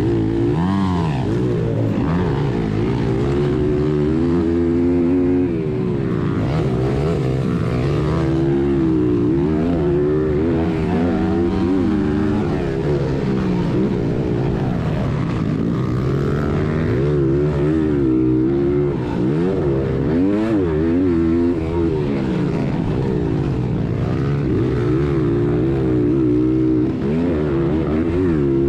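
Honda XR100R's air-cooled single-cylinder four-stroke engine revving hard and easing off again and again as the bike is ridden around a motocross track, the pitch climbing and dropping through the gears.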